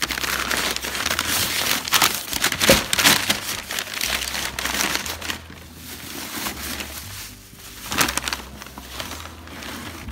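Kraft packing paper and a plastic wrapping bag crinkling and rustling as they are pulled about and out of a cardboard box. Loudest through the first half, dying down, with another short burst about eight seconds in.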